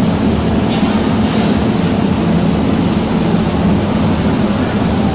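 MIG welder arc running steadily on .035-inch wire, a continuous crackling buzz without a break.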